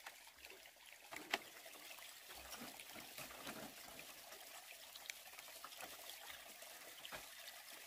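Faint trickling water, with a few light clicks and knocks, the sharpest about a second in.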